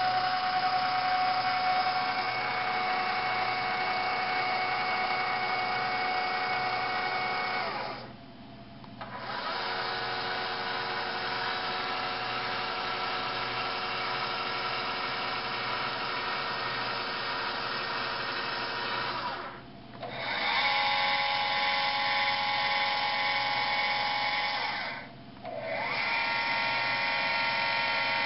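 Celestron CPC Deluxe 1100 HD telescope mount's drive motors slewing at top speed (rate 9): a quite loud, steady electric whine. It runs in four stretches, stopping briefly about 8, 19 and 25 seconds in, and rises in pitch each time it starts up again.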